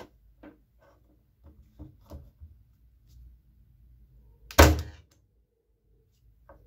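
KOBB KBZ90 electric nailer firing a single nail into a strip of wood about four and a half seconds in, one sharp loud shot, at a lowered power setting that leaves the nail head standing proud. Before it, a few light knocks of the tool being set against the wood.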